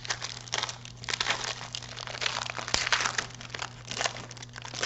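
Trading cards and pack wrappers being handled and shuffled, in irregular crinkling rustles, over a steady low hum.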